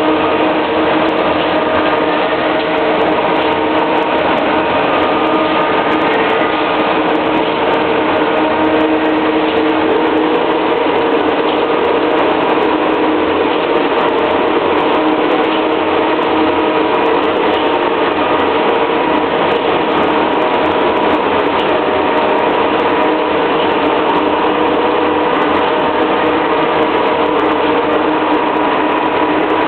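Heavy diesel machinery of a concrete pour, the concrete pumps and ready-mix trucks, running steadily at constant speed, with a dense mechanical din.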